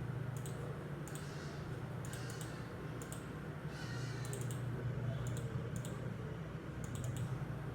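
Computer keyboard and mouse clicks in short scattered bursts over a steady low hum.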